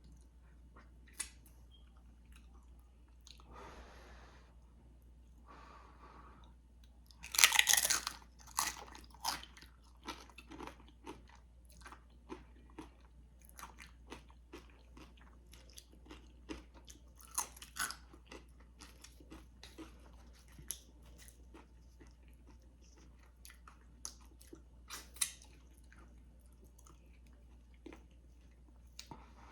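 Close-up eating of tortilla chips with dip: one loud crunching bite about seven seconds in, then a long run of crisp crunching chews.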